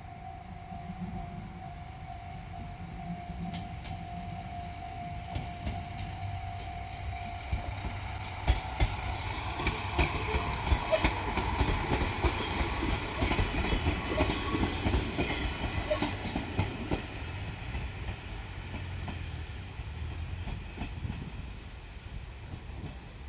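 JR Shikoku diesel railcar train passing, its wheels clattering over the rail joints as it comes close and then fading away. A steady tone sounds through the first third and stops.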